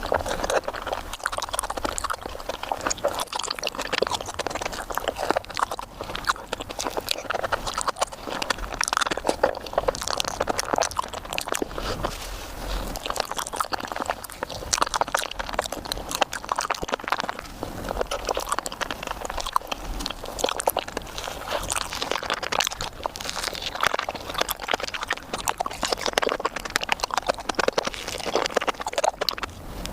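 ASMR eating sounds of a Japanese fruit sandwich played at five times normal speed: a fast, dense stream of wet chewing and mouth clicks.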